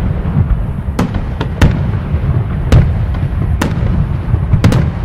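Fireworks display: a continuous low rumble of bursting shells with about half a dozen sharp, loud cracks spread through it.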